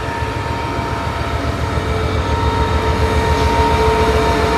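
Train running: a low, pulsing rumble with a steady hum over it, growing gradually louder.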